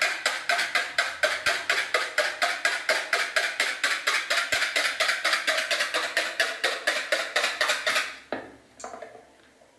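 Wire whisk beating an egg in a plastic bowl: a fast, even clatter of about five or six strokes a second that stops about eight seconds in.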